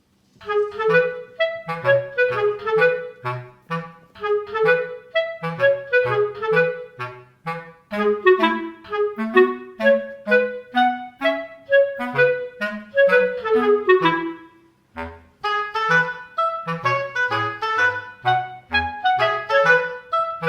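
Background music: a bouncy instrumental tune of short, quick notes over a bass line, breaking off briefly about fifteen seconds in.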